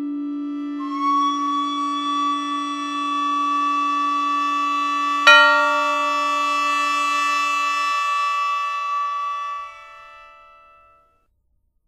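Slow Confucian ritual hymn melody played as long held tones on a synthesized instrument. A low note sounds under a higher note that enters about a second in. A single sharp struck note comes about five seconds in, and everything fades out near the end.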